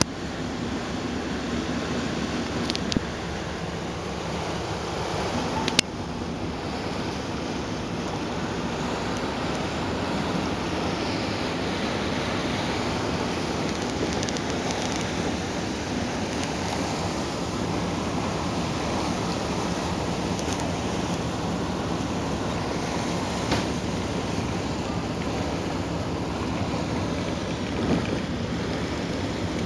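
A ferry under way: a steady rush of water churning along the hull, with wind buffeting the microphone and a low engine drone underneath. A sharp click comes about six seconds in.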